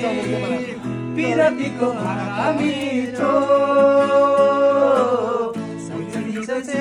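Several men singing together to a strummed acoustic guitar, with one long held note about three seconds in.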